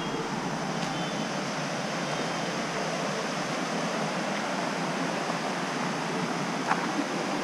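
Steady rush of a river running over rocks, with a few faint clicks near the end.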